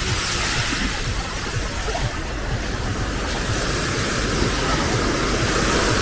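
Small waves breaking and washing up on a sand-and-pebble shoreline, in a steady hiss that swells at the start and builds again toward the end, with wind rumbling on the microphone.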